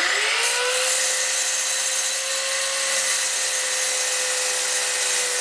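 Electric chop saw running steadily while it cuts through an eighth-inch-thick aluminum flat bar, a steady motor tone under a harsh high cutting hiss that comes in about half a second in as the blade bites.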